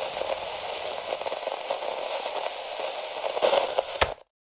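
Crackling, static-like hiss with small ticks, ending in a sharp click about four seconds in, after which the sound cuts off completely.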